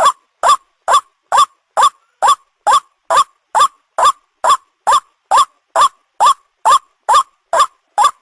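White-breasted waterhen (ruak-ruak) call played as a bird-hunting lure: short rising notes repeated in an even series, a little over two a second, each sweeping up to a sharp peak.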